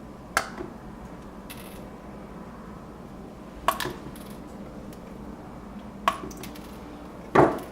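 Four sharp clicks of small hard objects knocking together, a second or more apart with the last the loudest, over a steady low hum, as tools and parts are handled during a control board repair.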